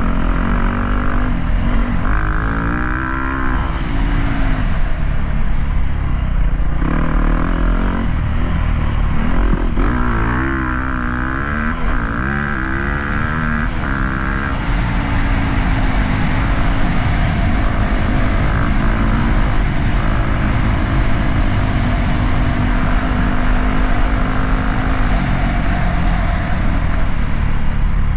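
Yamaha YZ dirt bike engine revving up and down repeatedly through the first half as the throttle is opened and closed, then holding a steadier pitch for the rest.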